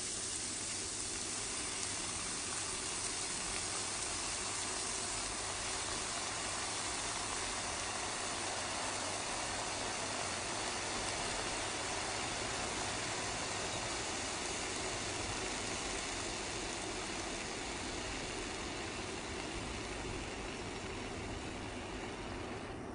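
A steady, even hiss with no distinct knocks or voices.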